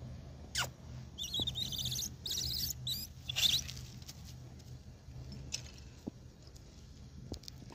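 High-pitched chirping calls in several quick trilled bursts during the first few seconds, then a few faint ticks, over a steady low hum; a sharp click comes about half a second in.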